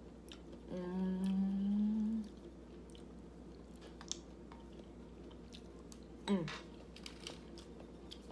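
A woman's wordless voice: one held note starting about a second in, lasting about a second and a half and rising slightly, then a short note falling in pitch near the end. Faint light clicks come in between.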